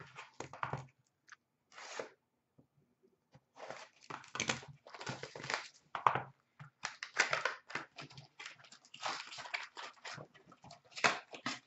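A sealed box of hockey trading cards being torn open by hand, its wrapping and cardboard crinkling and tearing in irregular bursts. A few short bursts come first, then a denser run of crinkling from about three seconds in.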